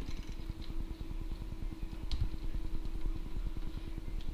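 A paper towel rubbing across an arcade cabinet's control panel in a few faint strokes, over a louder steady low pulsing hum from an unseen machine.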